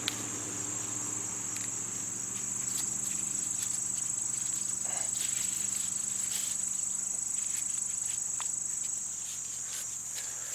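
A steady, high-pitched chorus of insects, with faint rustles and clicks of corn husks being handled and pulled back.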